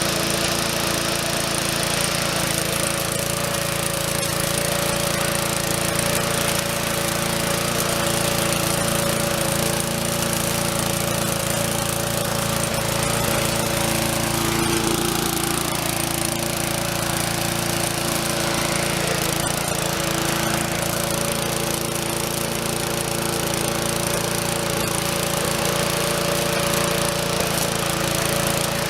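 Murray push mower's Briggs & Stratton small engine running steadily, warming up shortly after a cold start.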